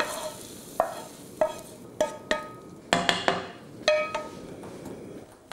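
A wooden spoon scraping and knocking fried onions out of a frying pan into a saucepan. There are about eight sharp knocks, roughly half a second apart, each ringing briefly off the metal pan, and they stop about four seconds in.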